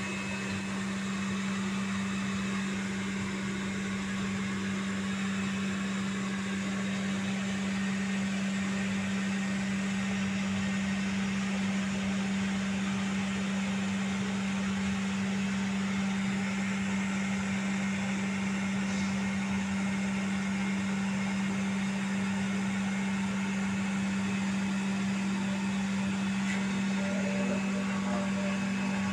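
Steady machine hum, one low tone with a hiss over it, unchanging throughout.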